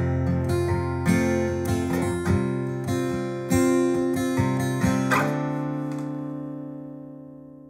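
Acoustic guitar playing the closing chords of a song, several chords struck in turn. A final chord about five seconds in is left to ring out and fades away.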